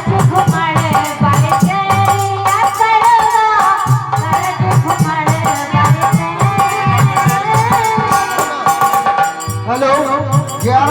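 Instrumental interlude of a Hindi devotional folk song: a hand drum and a shaken rattle keep a fast beat under a melody instrument playing held notes.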